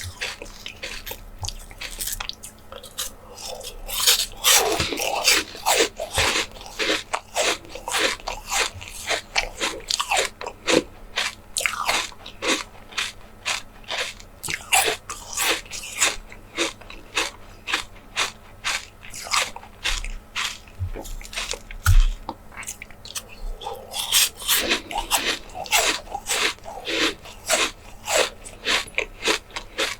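Close-miked eating: bites and chewing with a steady run of sharp crunchy crackles, about two or three a second, coming thicker in two spells.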